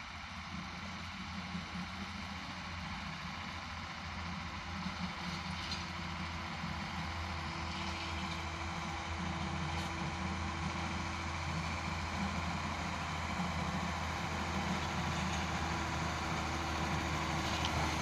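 Truck engine running steadily as the road-rail truck drives along the railway track, slowly growing louder as it comes closer.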